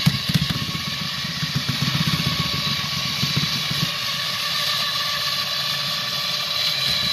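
Cordless drill motor running steadily, turning a mixing paddle through the scrapple mush of cornmeal and flour in a kettle.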